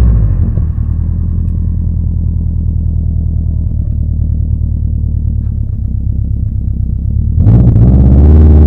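Subaru Impreza GB270's flat-four engine through a custom 3-inch exhaust, revs dropping back to a steady idle rumble. About seven and a half seconds in it is revved up sharply and held at higher revs.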